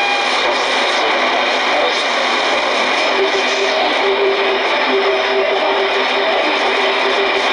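Shortwave radio receiver tuned to the 31 metre band: music coming through a steady wash of static hiss, with held notes standing out from about three seconds in.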